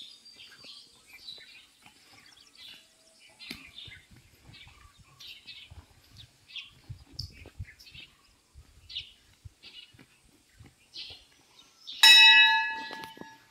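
Small birds chirping and twittering. About twelve seconds in, a hanging brass temple bell is struck once and rings loudly, with several clear tones fading away.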